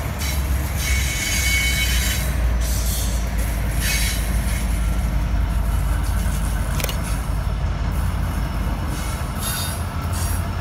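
Coal freight train rolling past close by: a steady low rumble of wagons on the rails, with a brief high wheel squeal about a second in and a few sharp clanks.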